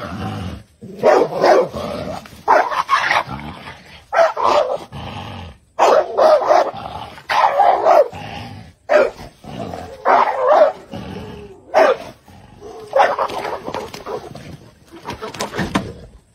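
A dog barking over and over, a bark or short run of barks roughly every second.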